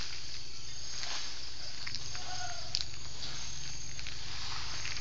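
Steady outdoor insect drone, high-pitched and even, over a low rumble, with a few faint clicks and a brief faint call about halfway through.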